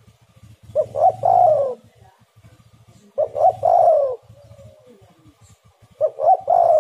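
Spotted dove cooing three times, each call a few quick short notes followed by a longer falling coo, repeated about every two and a half seconds.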